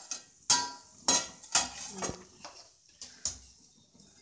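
Aluminium pan lid held in pan-gripping tongs clanking against the rim of an aluminium kadai as it is lifted off and set aside: about five sharp metal clanks over the first three and a half seconds, some with a brief ring.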